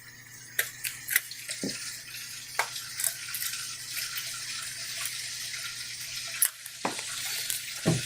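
A steady hiss with scattered small clicks and taps, from desoldering an IC chip off a circuit board, with two duller knocks near the end.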